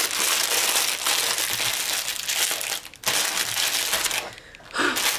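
Plastic packaging crinkling as a strip of small plastic bags of resin diamond-painting drills is handled. It comes in spells, with short pauses about three seconds in and again after about four seconds.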